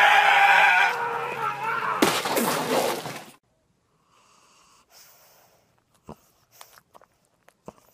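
A man's drawn-out angry yell, then about two seconds in a loud crash like something being smashed, cut off suddenly. After that, near quiet with a few faint short ticks and snuffles.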